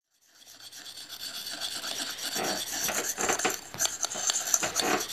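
Sharpening stone rubbed in quick repeated strokes along the steel blade of pruning shears, a gritty scraping that fades in during the first second or two and then keeps going.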